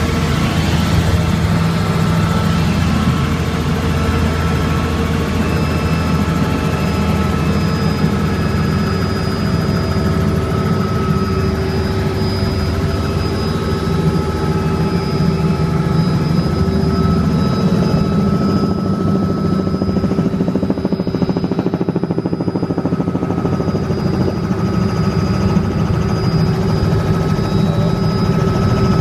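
Robinson R66 turbine helicopter in flight, heard from inside the cabin: a steady drone of rotor and Rolls-Royce RR300 turboshaft, with a low rumble under several steady high whine tones.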